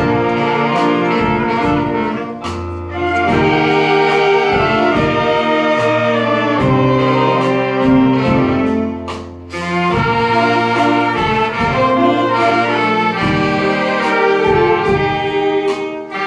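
Saxophone ensemble playing a slow melody in harmony over a low bass line, with held notes and two brief pauses, about two and a half and nine and a half seconds in.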